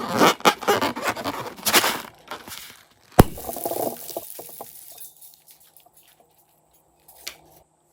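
Slime-making sounds: crunchy crackling for the first couple of seconds, a single sharp snap about three seconds in, then softer squishing that fades out.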